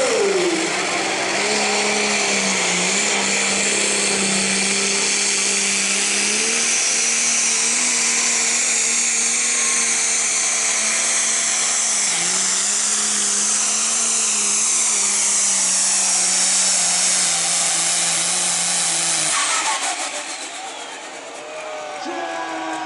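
International-bodied modified pulling tractor under full power during a pull, a steady drone with a high whine on top that falls slowly in pitch. The engine cuts off suddenly about twenty seconds in.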